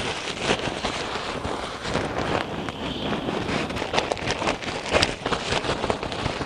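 Lightweight fabric inflation bag on a packraft valve rustling, flapping and crinkling as it is swung open to catch air and squeezed to force the air into the boat, with many sharp crackles throughout.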